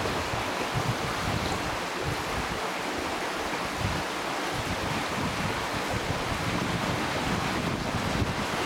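Steady rush of river current flowing over rocks, with wind blowing on the microphone in uneven low gusts.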